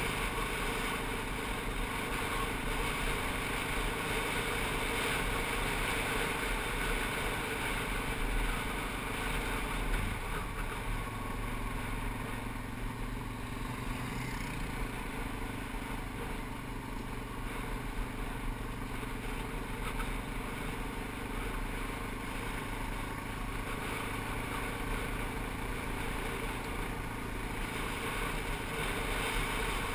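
ATV engine running steadily while riding along a gravel trail, its tyres rolling over the gravel.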